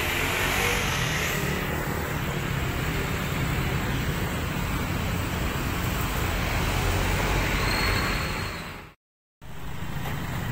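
Steady street traffic noise with a low engine rumble from passing vehicles. It cuts to silence for about half a second near the end, then resumes.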